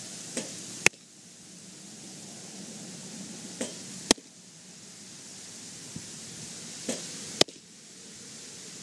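Baseball smacking into a catcher's mitt three times, about three seconds apart, each sharp pop coming about half a second after a softer whoosh of the incoming pitch.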